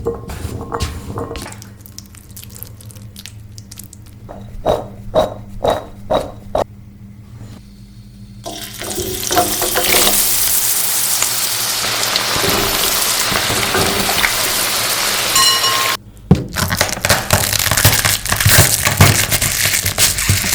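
Hot oil sizzling loudly in a deep fry: a steady hiss that starts abruptly and cuts off suddenly after about seven seconds. Before and after it come scattered knocks and clicks of utensils against the pan.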